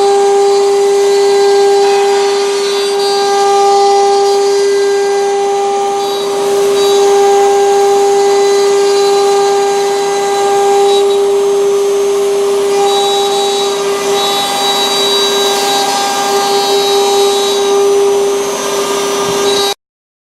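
Eight-spindle CNC router carving wood, its spindles running with a loud, steady whine over the noise of the cutting. The sound cuts off abruptly near the end.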